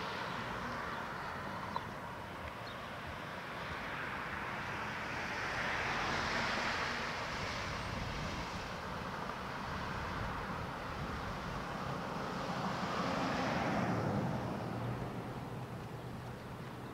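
Road traffic passing on a city street: tyre and engine noise swells and fades as vehicles go by, loudest about six seconds in and again around thirteen seconds.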